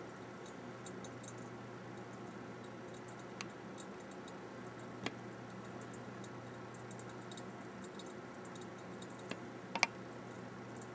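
Cooling fan running with a steady hum as a reballed GPU cools after reflow, with a few scattered sharp clicks, the loudest near the end.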